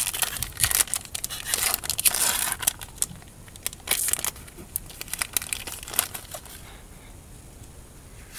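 Foil wrapper of a Pokémon trading card booster pack being torn open and crinkled. A dense run of crackling for the first few seconds thins to scattered crinkles and dies away about six and a half seconds in.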